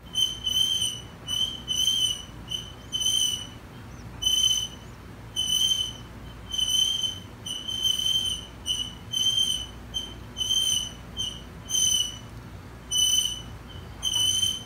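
Toddler's sippy cup squeaking with each suck on the spout: short, high whistles on one steady pitch, one or two a second at an uneven pace.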